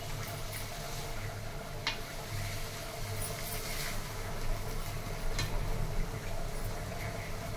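Wooden spatula stirring and scraping chicken fry in a metal kadai, with a few sharp taps of the spatula against the pan, over a steady low hum.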